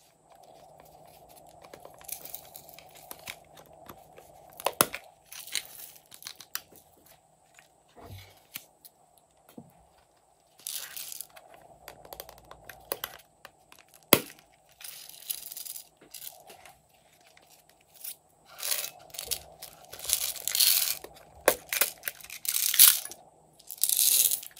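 Hollow plastic toy containers handled and opened, giving a few sharp plastic clicks between irregular crackly, rustling bursts as small beads and sprinkles are shaken out of them. The bursts come thicker near the end.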